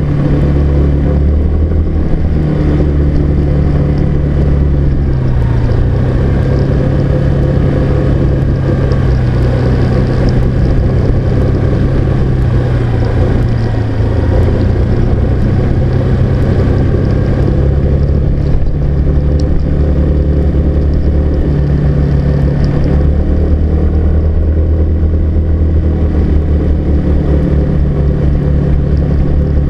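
Car engine and road noise, heard from the car while driving. The engine note is loud and steady, shifting slightly up and down in pitch.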